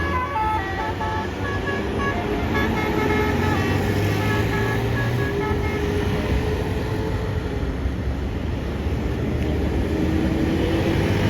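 A tour bus's Basuri melodic horn playing a quick run of short, stepped notes for the first few seconds, over the steady drone of bus engines and traffic. An engine note rises near the end.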